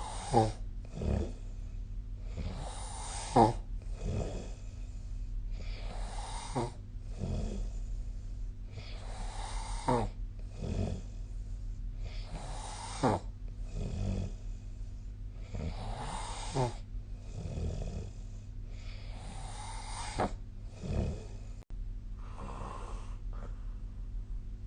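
A sleeping person snoring in a regular rhythm, one snore about every three seconds, each falling in pitch, with softer breathing between. The last breaths near the end are quieter, without a clear snore.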